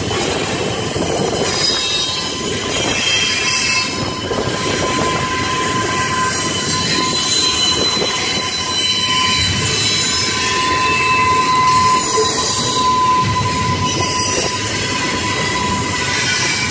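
BNSF double-stack container well cars rolling past, a steady rumble of wheels on the rails with a thin, high wheel squeal running over it that is loudest about two-thirds of the way through.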